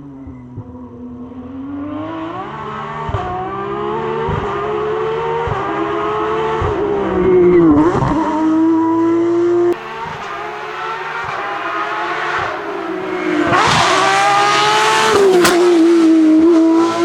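Porsche 911 GT3 Cup's flat-six racing engine at high revs, climbing through the gears with short breaks at each shift. The revs dip sharply and climb again twice, about eight seconds in and near the end.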